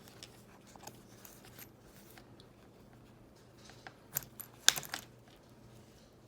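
A small fabric-covered notebook being handled: faint rustling and light taps, then a quick run of sharp clicks and rattles about four to five seconds in.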